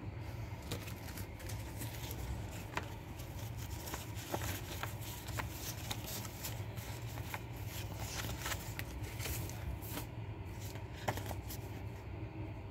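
A stack of polymer banknotes being shuffled and handled by hand, giving a steady string of light crinkles and clicks.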